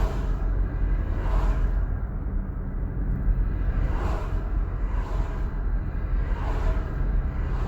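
Car driving with the window open: a steady low rumble of road and wind noise, with brief whooshes every second or two.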